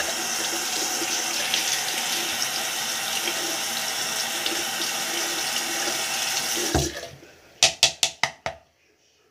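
Bathroom sink tap running steadily, shut off about seven seconds in, followed by five quick, sharp taps.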